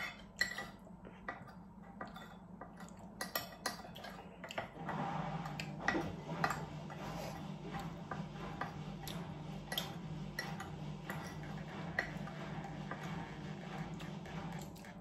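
Chopsticks clicking and tapping against bowls, takeaway containers and a ceramic mug during a meal, with several sharp taps in the first few seconds. From about five seconds in a steady low hum runs underneath until near the end.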